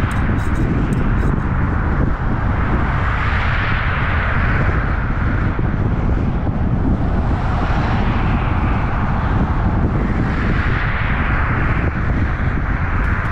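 Steady wind and road noise from a vehicle driving at speed on a highway: a low rumble with a hiss that swells and fades twice.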